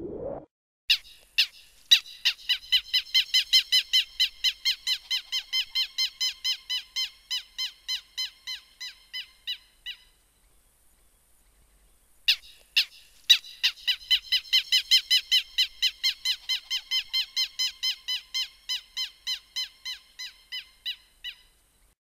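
Canary giving its alarm call: short notes repeated rapidly, about four a second, in two bouts of roughly nine seconds each with a gap of about two seconds between them. Each bout fades toward its end.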